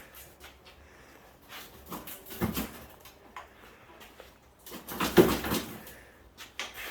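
Knocks and rattles from the front fender of a 2002 Jeep Wrangler TJ being tugged loose by hand, with the loudest knock about five seconds in. The fender is snagging on the aftermarket intake.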